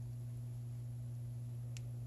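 Steady low electrical hum under a faint hiss, with one light click near the end.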